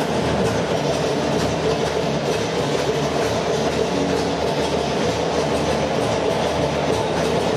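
Music for a synchronized swimming team routine played over poolside loudspeakers, steady and continuous, mixed with splashing from the swimmers.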